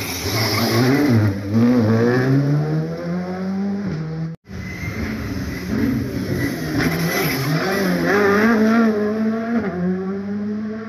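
Rally car engines revving hard, the pitch dipping as the throttle is lifted and then climbing steadily as the car accelerates away. A sudden cut about four seconds in starts another car's pass, its engine note rising and falling several times.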